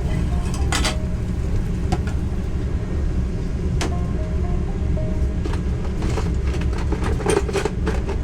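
Steady low rumble under scattered clicks and light clinks, as of utensils and containers handled in a small kitchen.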